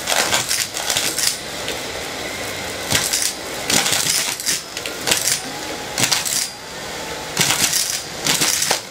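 Miele S4 Neptune canister vacuum running steadily while sucking up coins, which clatter and rattle into the nozzle in repeated bursts every second or so.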